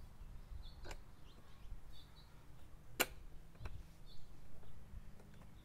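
A single sharp click about three seconds in, with a fainter tap about a second in, as the mower's handle and its hardware are worked into position. Faint bird chirps over low outdoor rumble.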